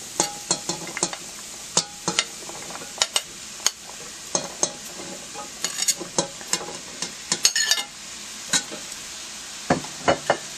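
Raw butternut squash cubes being scraped off a ceramic plate with a utensil and dropping into a stainless steel pot: an irregular clatter of knocks and clicks as the pieces hit the plate, the pot and each other, over a steady faint sizzle of onion and celery cooking in olive oil.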